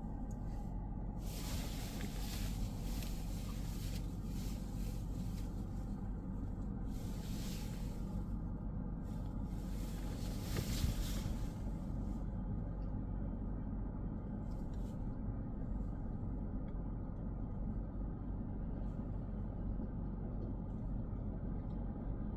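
A car driving on a road: a steady low rumble of engine and tyres, with tyre hiss swelling and fading several times in the first half. There is one brief thump about eleven seconds in.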